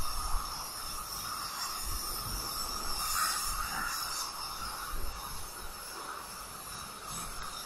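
Steady outdoor background hiss with low, uneven wind rumble on the microphone.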